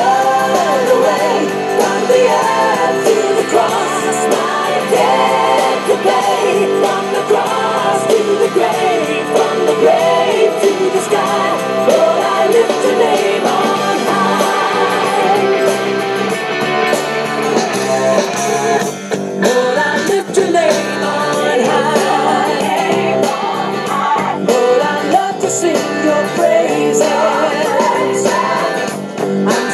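A pop-rock song with a singer and guitar, played through a loudspeaker, with little bass.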